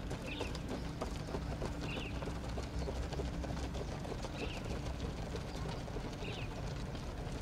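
A bird gives four short, high calls about two seconds apart, over a steady low rumble and scattered faint ticks.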